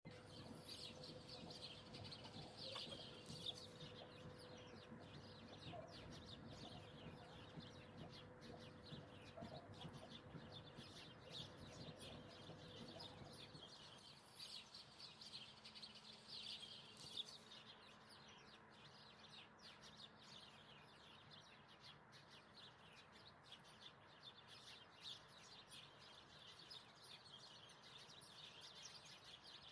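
Faint birdsong: small birds chirping over and over in the background.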